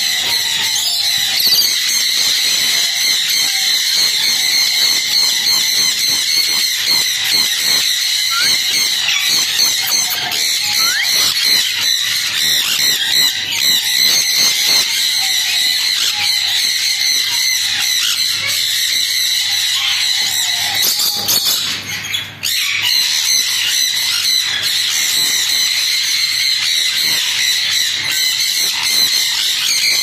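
A flock of caged parrots, including sun conures, chattering, chirping and squawking together in an aviary, a dense, continuous, high-pitched din.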